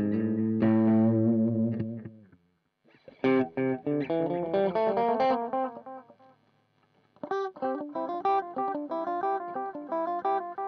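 Electric guitar, a Strat copy, played through a MiMiDi delay pedal. A held chord dies away, then picked single notes ring out with fading repeats, and after a short pause a quicker run of picked notes starts about seven seconds in.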